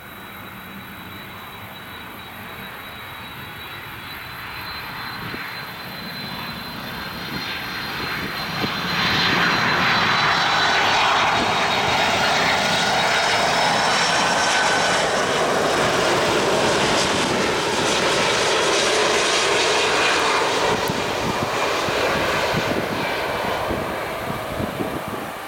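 Jet engines of a Boeing 767 airliner on landing approach, with a steady high whine at first. The engine noise grows loud about nine seconds in as the plane passes close by, then eases slightly near the end.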